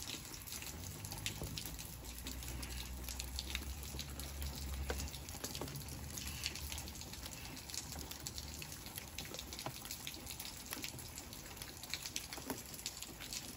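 Rain dripping and pattering onto a wet patio and yard at the tail end of a thunderstorm, with many scattered drop ticks over a steady wash. A low rumble runs through the first half.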